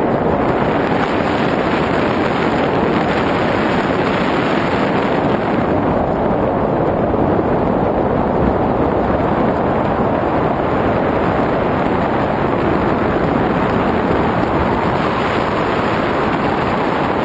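Steady rushing wind buffeting the camera's microphone during a descent under an open parachute canopy.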